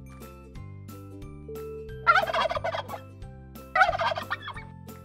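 A tom turkey gobbling twice, two rapid rattling calls each under a second long, about a second and a half apart, over soft background music.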